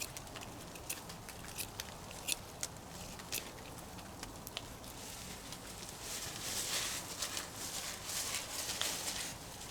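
A knife sharpening the prong ends of a forked wooden stick: a run of scraping shaving strokes in the second half, after scattered sharp clicks, likely the campfire crackling.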